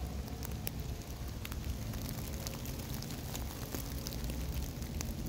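Steady rain, with scattered sharp ticks of single drops hitting close by over a low, even rumble.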